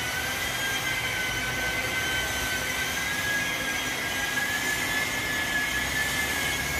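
A machine running with a steady high-pitched whine over a hiss, the pitch wavering only slightly.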